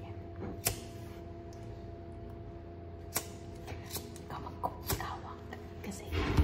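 A handheld lighter clicking a few times as it is struck to light birthday number candles, over a steady background hum. A louder rustling bump comes near the end.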